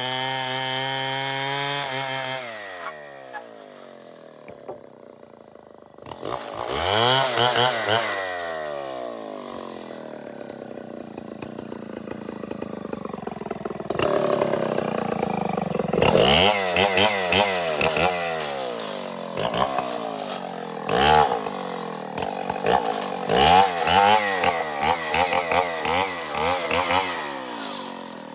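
Stihl 070 two-stroke chainsaw held at high revs, then dropping to idle about two seconds in. It is revved up and let back down once around six seconds in, then blipped up and down repeatedly through the second half.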